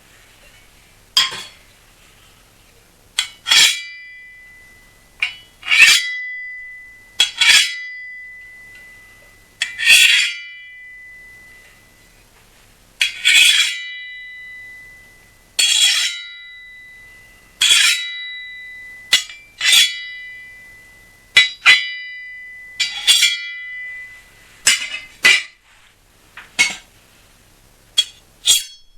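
Steel kitchen knife blades struck together again and again, each clash ringing on with a high metallic tone like a sword blade. The clashes come every second or two, some in quick pairs, each ring fading over a second or more.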